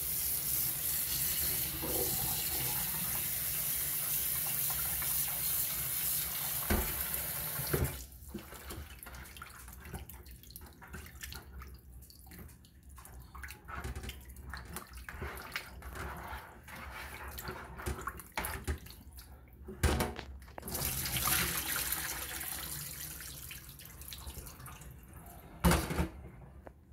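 Kitchen faucet running onto raw oxtail pieces in a bowl in a stainless steel sink as they are rinsed, shut off about eight seconds in. After that, quieter sloshing and handling of the wet meat in the bowl, with a few knocks and a second stretch of rushing noise later on.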